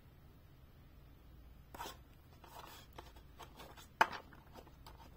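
Fingers rubbing a sticker down and handling a plastic toy excavator: faint rubbing and rustling, with a sharp plastic click about four seconds in.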